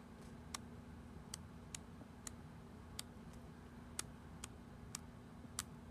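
Sheets of a 6x6 patterned paper pad being flipped one at a time, each page giving a faint click, about one to two a second at uneven spacing, over a faint steady low hum.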